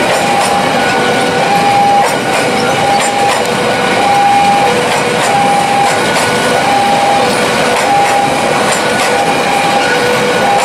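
Passenger coaches of the Argo Bromo Anggrek express passing at speed, with a steady loud rumble of wheels on rail. A level crossing's electronic warning alarm sounds over it, repeating a pattern of alternating tones about every half second.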